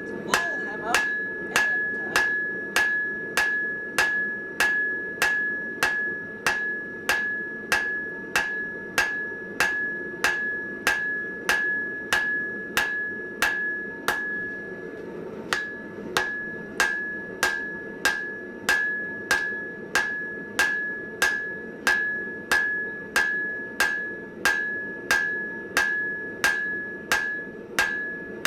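Hammer blows on hot mild steel over an anvil, struck in a steady rhythm of about one and a half blows a second, each with a bright ring from the anvil; a short break about halfway. The steel bar is being drawn out thinner.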